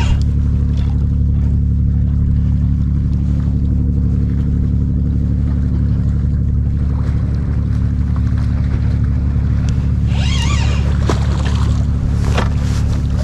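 Steady low engine drone with an unchanging hum, with a brief higher wavering sound about ten seconds in and a short sharp noise a couple of seconds later.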